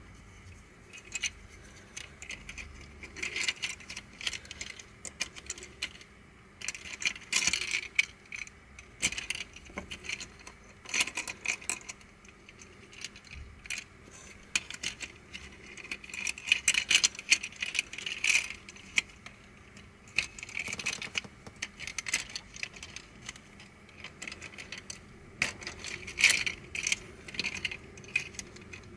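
Black plastic pieces of a Crazy Octahedron Plus twisty puzzle clicking and rattling against one another in irregular bursts as they are handled and fitted together during assembly.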